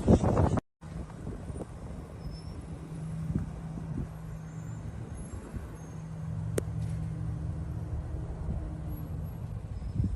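A road vehicle's engine running steadily with a low hum, and a single sharp click about six and a half seconds in.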